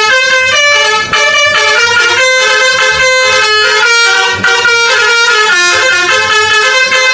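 Multi-trumpet "telolet" bus air horn playing a tune, loud, its held notes stepping up and down with several sounding together.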